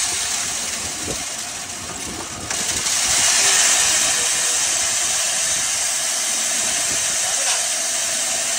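A 10 hp cattle feed grinder running, a steady machine noise dominated by a loud whoosh of air rushing through it. It steps up louder about two and a half seconds in and then holds steady.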